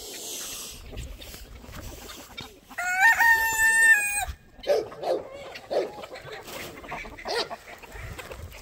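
A rooster crows once, about three seconds in, in one loud call of about a second and a half; after it, chickens cluck in short, separate calls.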